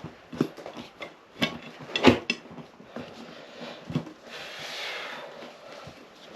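Motorcycle tyre and wheel rim being worked by hand: a few separate knocks and clatters, the loudest about two seconds in with a short rattle after it, then a second or so of rubbing as the tyre is pushed against the rim.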